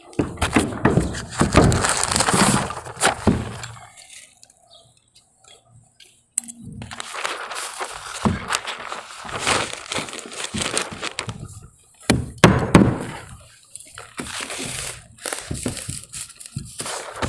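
Irregular knocks, cracks and rustling from roofers handling and fastening synthetic underlayment on a roof deck, with a near-quiet gap about four to six seconds in.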